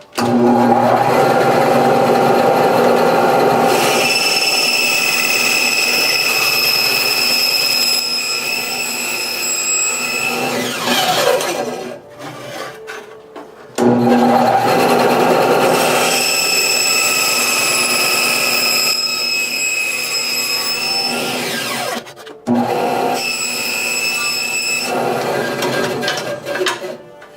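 Power saw cutting G10 handle-scale material, its motor running with a steady high whine and spinning down with a falling pitch about eleven seconds in, starting again about three seconds later, stopping again near twenty-two seconds and making one short last run.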